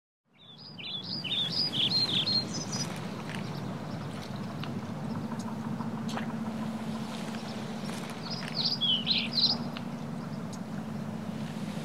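Outdoor ambience rising in from silence: small birds chirping in two short bursts, near the start and again about nine seconds in, over a steady low hum.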